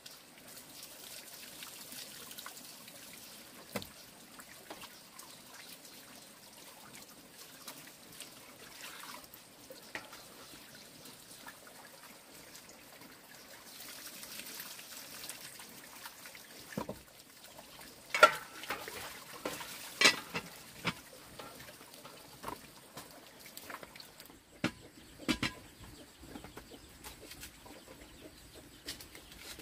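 Water trickling faintly, broken by scattered clicks and a few sharp knocks, the loudest about eighteen seconds in.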